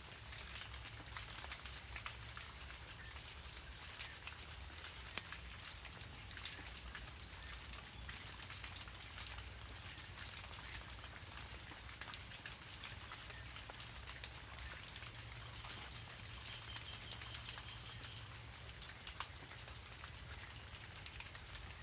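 Steady rain falling, with many individual drops tapping close by. A few faint, high, short bird chirps come through now and then.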